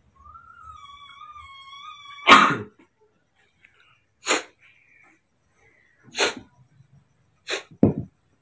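A baby macaque makes a thin, high call held for about two seconds, then five short sneeze-like snorts. The first snort, just after two seconds in, is the loudest, and the last two come close together near the end.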